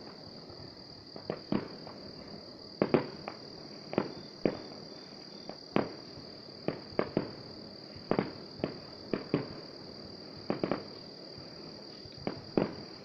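About twenty sharp pops from distant fireworks, coming at irregular intervals, over the steady high-pitched chirring of night insects.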